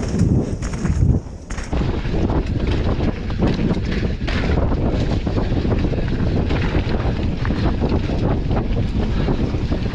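Wind buffeting an action camera's microphone on a mountain bike descending at speed, with the tyres rumbling over the dirt trail and the bike knocking and rattling over bumps. The noise drops briefly about a second in, then carries on.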